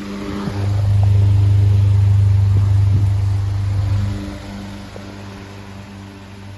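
Antique Century S3 16-inch table fan running with a steady electric motor hum. About half a second in, a much louder low hum comes in, holds for about three and a half seconds, then drops back to the quieter hum, with a few faint clicks along the way.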